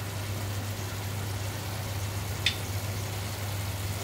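Steady low hum over a faint hiss of tomato-onion masala frying in oil in the pan, with one short sharp click about two and a half seconds in.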